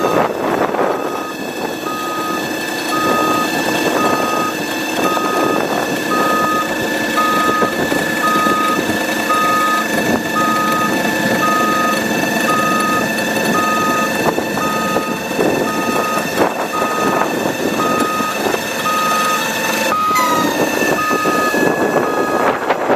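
Truck warning beeper sounding about once a second, over a steady mechanical whine from the truck's machinery that dips and falls in pitch about twenty seconds in.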